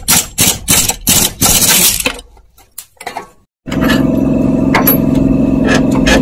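Socket ratchet cranking a suspension bolt, rapid strokes about four a second that stop about two seconds in, followed by a few light clicks. A steady mechanical hum starts suddenly just before the four-second mark and carries on, with faint metallic clinks over it.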